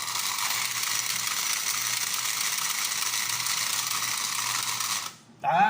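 Toy horse-racing game's motor and gear mechanism running with a steady whirring clatter as the horses race. It starts suddenly and cuts off about five seconds in when the race ends.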